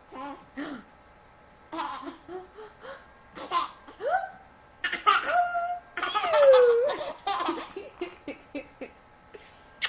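A baby laughing in repeated bursts and squeals. The loudest is a long squeal falling in pitch about six seconds in.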